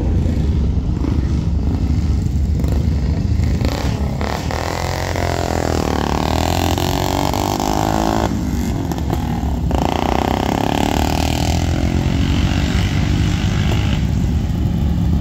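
Motorcycle engine running over a steady low rumble; from about five seconds in its pitch climbs and then falls back again, easing off near the end.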